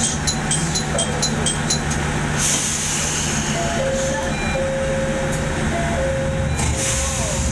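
Noto Railway 'Satoyama Satoumi' diesel railcar standing at the platform with its engine idling as a steady low hum. A quick row of high beeps stops about a second and a half in, then two bursts of air hiss come, about two and a half seconds in and near the end, with a faint tune of two alternating notes between them.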